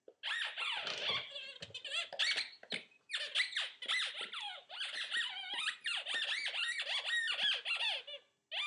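Rubber squeaky dog toy squeaking over and over as a puppy plays with it: a rapid, almost unbroken string of high squeals that rise and fall in pitch, with a brief pause about three seconds in.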